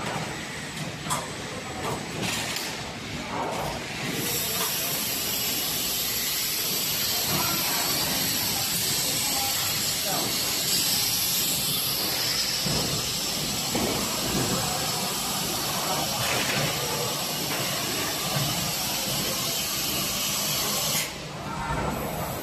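Factory packing-line machinery with short knocks and clatter, then a steady compressed-air hiss that starts about four seconds in and cuts off suddenly near the end.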